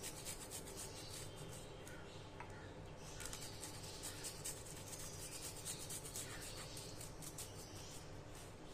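Garlic cloves rubbed against a fine stainless-steel hand grater: faint, quick, repeated scraping strokes as the garlic is grated to a paste.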